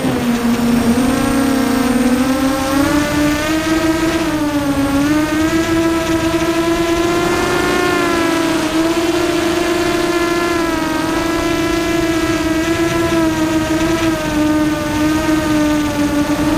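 Hovership ZUUL FPV racing quadcopter's motors and propellers whining in flight, heard from the onboard camera. The pitch dips just after the start, climbs about two seconds in, then wavers up and down with the throttle.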